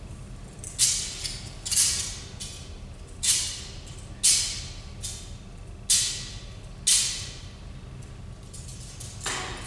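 Metal thurible (censer) swung on its chains, giving three pairs of sharp metallic clinks that each ring briefly, with a fainter clink near the end. These are the three double swings used to incense the Gospel book before it is read.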